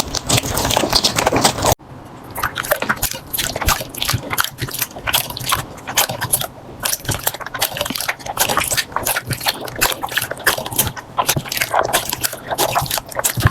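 Slime being squeezed and poked by hand: a fast run of sticky clicks and small pops. About two seconds in, a denser, louder squishing cuts off abruptly and the clicking begins.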